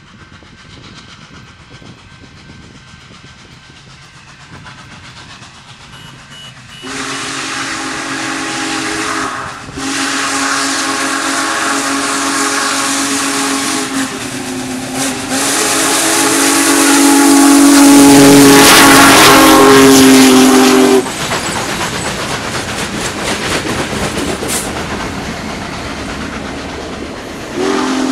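Union Pacific Big Boy No. 4014 steam locomotive approaching and passing, its steam whistle sounding a loud chord over the hiss of steam and the rumble of the train. There is a short blast about seven seconds in, then a long one held for about ten seconds, loudest as the engine goes by. After the whistle stops the cars roll past, and another blast starts near the end.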